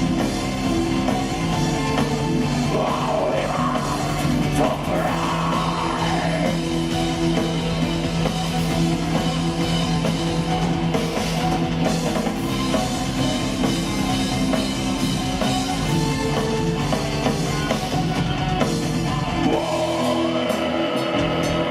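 Doom/gothic metal band playing live: distorted guitars, bass, keyboards and drum kit in a slow, heavy instrumental passage. Near the end the bass and drums drop out, leaving guitar.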